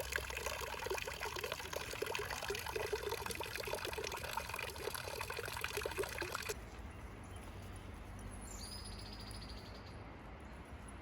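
Water trickling or pouring steadily, a dense crackling splash that cuts off abruptly about six and a half seconds in, leaving a quiet background with a faint high tone.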